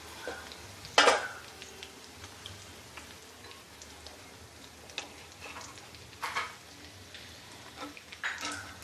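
Chicken pieces sizzling steadily in hot oil in an aluminium wok, with a metal slotted skimmer knocking and scraping against the pan a few times as the fully fried pieces are scooped out. The loudest knock comes about a second in.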